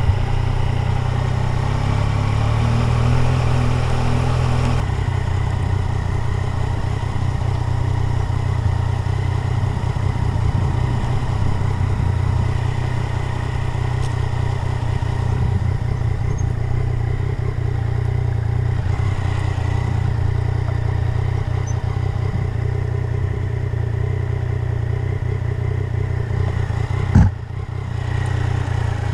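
Motorcycle engine running steadily while riding along a dirt track. Its note changes about five seconds in. A single sharp knock sounds near the end.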